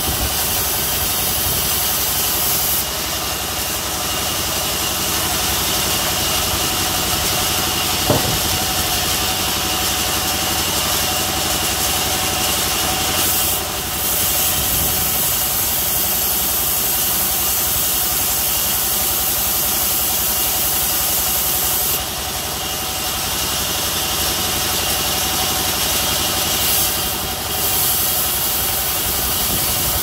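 Sawmill saw running steadily while a wattle log is fed through it for cutting, with a sharp knock about eight seconds in.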